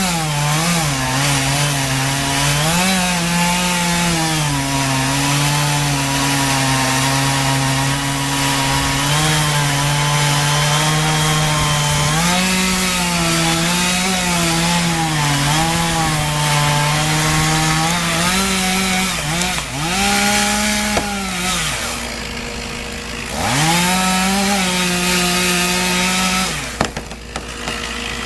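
Two-stroke chainsaw running at high revs as it cuts through wood, its pitch sagging under load and picking back up again and again. Twice, past the middle, it briefly drops off the throttle, and about two seconds before the end it falls away.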